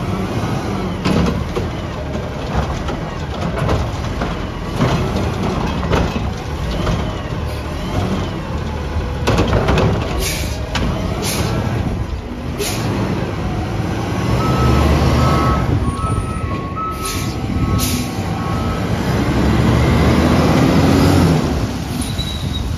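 Automated side-loader garbage truck emptying curbside carts over its running engine, with repeated sharp bangs and air hisses as the arm lifts and shakes the carts. Past halfway comes a string of about six beeps typical of a reversing alarm, then the engine revs up as the truck pulls away.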